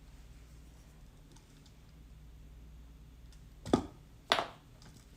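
Two sharp knocks about half a second apart near the end, over a few faint small clicks.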